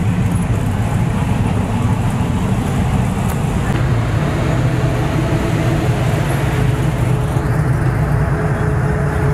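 Classic Chevrolet pickup truck engine running steadily as the truck rolls past at low speed.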